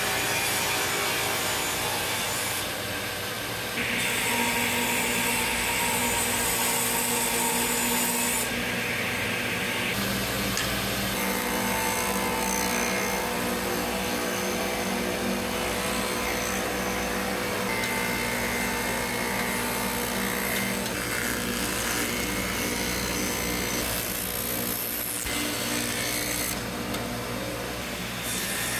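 Woodworking power tool running through wood, a continuous rushing sound with a faint motor tone that shifts character every few seconds.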